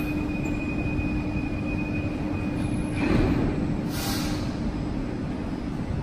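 CAF metro train standing at the platform with a steady hum and a high tone, its doors closing with a thud about three seconds in, followed by a short hiss a second later.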